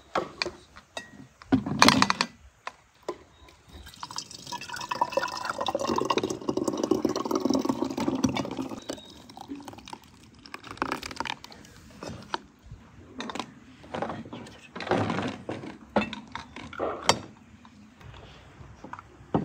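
Thick strawberry juice being poured from a plastic jug through a funnel into glass bottles. A long pour of several seconds rises in pitch as it goes. Short knocks and clinks of the jug and bottles come before and after it, the loudest a sharp knock about two seconds in.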